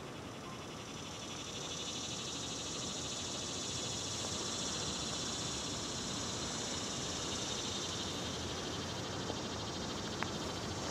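A steady, high-pitched buzzing chorus of calling animals that swells over the first couple of seconds and then holds.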